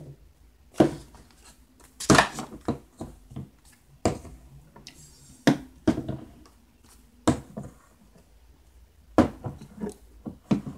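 Plastic bottles and squeeze tubes of bath products being picked up and set down on a tabletop: a string of irregular knocks and clatters.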